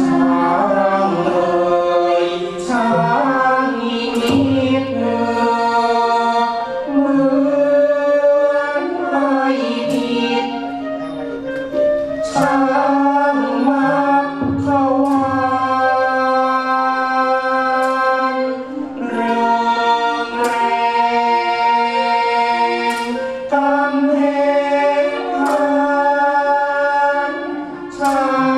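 Music accompanying a Khon dance-drama: a chorus of voices singing long held notes over orchestral accompaniment and a steady low note, with sharp percussion strikes every couple of seconds.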